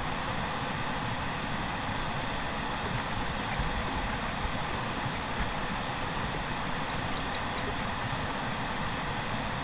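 Car running, heard from inside the cabin: a steady low rumble under an even hiss, with a few faint short high chirps about two-thirds of the way in.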